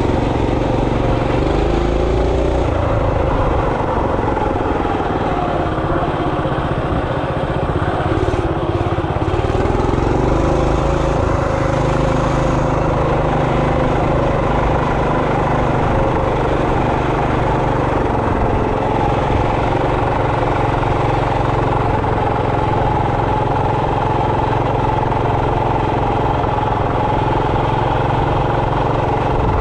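Coleman RT200 minibike's 200cc single-cylinder engine running under way. Its pitch rises and falls with the throttle over the first dozen seconds, then holds steady.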